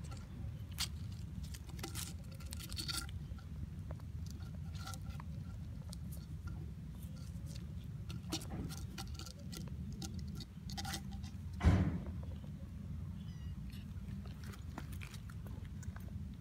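A kitten chewing: scattered small crunching clicks over a steady low rumble, with one loud knock about twelve seconds in.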